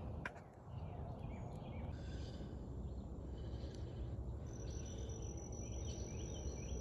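Dusk outdoor ambience: insects and birds calling, with scattered short chirps over a low steady rumble. A steady high insect trill starts about four and a half seconds in.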